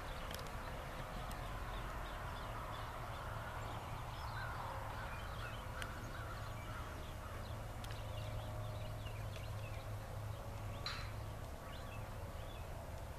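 Hoofbeats of a horse being ridden at trot and canter on the sand footing of an arena, with birds chirping.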